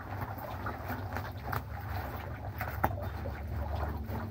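Black bubble-wrap plastic mailer crinkling and rustling as it is pulled open by hand, with scattered sharp crackles over a steady low hum.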